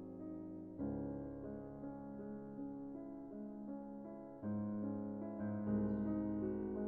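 Background piano music: slow, sustained chords, with new ones struck about a second in, again past the middle, and near the end.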